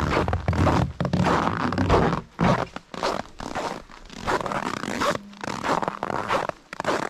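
Footsteps crunching on packed snow in a steady walking rhythm, about two steps a second.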